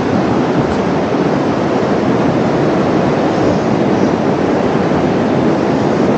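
Steady, continuous sound of Pacific Ocean surf washing onto the beach.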